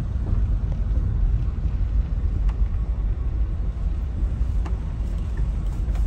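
A car driving, heard from inside the cabin: a steady low rumble of the tyres and engine on the road.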